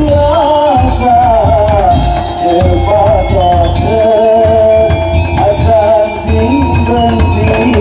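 Loud live Madurese daul percussion music: heavy drums beating steadily under a wavering melody line.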